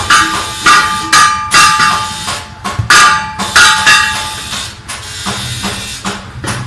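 Repeated hammer blows on metal, roughly one a second, each ringing briefly; the blows grow weaker near the end.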